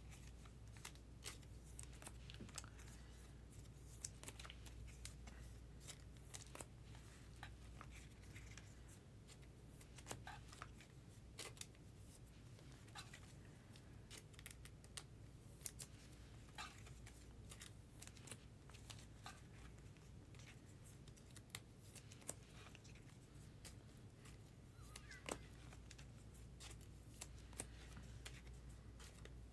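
Faint, irregular clicks and scrapes of baseball trading cards being slid into rigid plastic top loaders, over a low steady hum.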